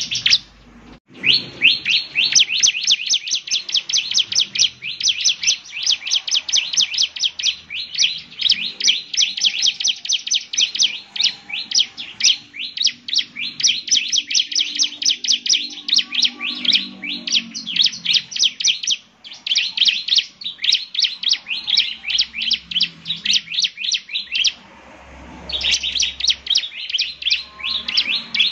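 Bar-winged prinia (ciblek) singing in fast, continuous runs of sharp, high chirps. The song breaks off briefly about a second in and again near the end.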